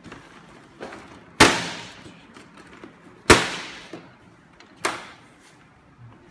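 Plastic casing of a split air-conditioner indoor unit pressed and slapped shut by hand: three sharp plastic cracks about one and a half seconds apart, the first two loudest, with a few lighter clicks between.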